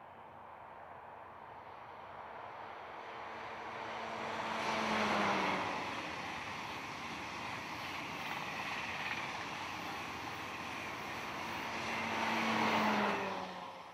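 Class 373 Eurostar high-speed electric train passing at speed: a rush of wheels and air builds as it approaches, and a hum from the leading power car falls in pitch as it goes by about five seconds in. A steady rushing follows as the coaches pass, then a second falling hum from the rear power car comes near the end before the sound dies away.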